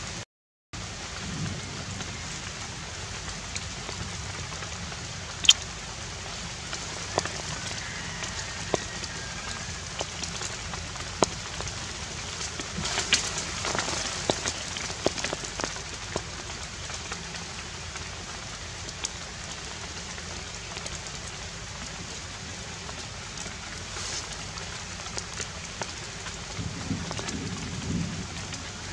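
Steady outdoor hiss, like light rain, with scattered sharp clicks and taps, a denser run of them about halfway through. The sound drops out completely for a moment just after the start.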